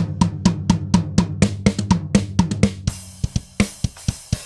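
Recorded drum kit playing back through a transient designer plugin: a run of rapid drum hits, about five a second, over a steady low note, then a cymbal crash about three seconds in followed by sparser hits.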